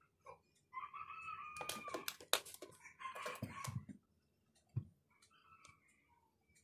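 A rooster crowing, one long crow of about three seconds, starting just under a second in. A few sharp clicks and soft knocks come from small tools and phone parts being handled.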